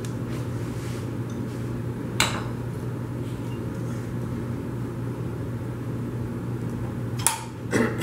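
Two sharp knocks a few seconds apart as a tire iron pries at a motorcycle tire's bead against the wheel rim, over a steady low hum. The bead is stuck and will not break loose.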